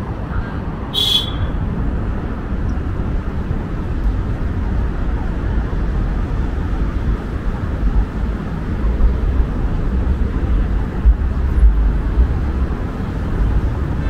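Steady road-traffic noise from cars driving on the bridge roadway below, a low rumble that swells and falls. One short, sharp, high-pitched sound comes about a second in.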